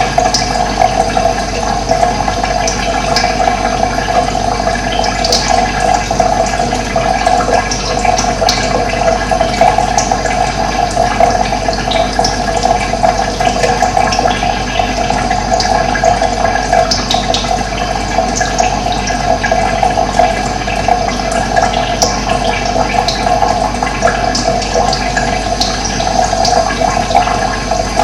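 Running water rushing steadily, with brief high bird chirps now and then over it.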